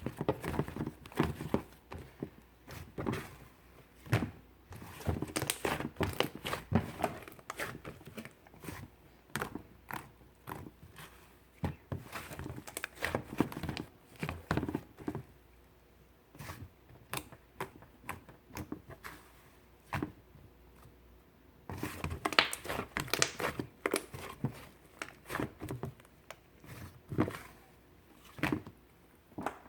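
Slime being squeezed, folded and pressed by hand, making irregular sticky clicks, pops and crackles. The popping thins out for a few seconds past the middle, then picks up again.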